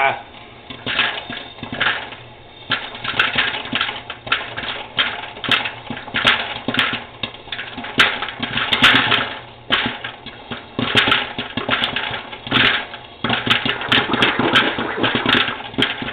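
Popcorn kernels popping in an electric popcorn popper under its clear plastic dome: rapid sharp pops bunched in flurries with brief lulls, over a steady low hum.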